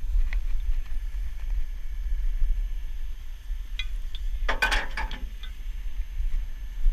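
Metal rigging clinking, a quick run of sharp clinks about four and a half seconds in, under a steady low rumble.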